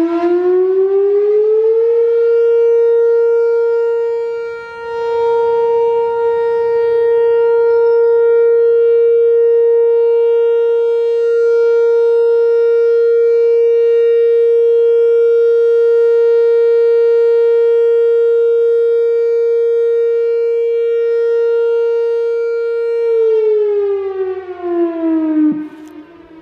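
Whelen WPS-4004 electronic outdoor warning siren sounding its steady Alert signal during a test: the tone climbs in pitch in the first two seconds, holds one steady pitch for about 20 seconds, then winds down near the end.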